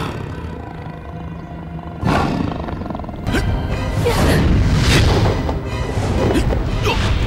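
Tiger roaring, a dubbed-in sound effect for a computer-generated tiger, over dramatic background music; the sound jumps louder suddenly about two seconds in.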